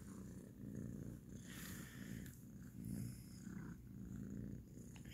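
Kitten purring close to the microphone, a soft steady rumble that swells and fades about once a second.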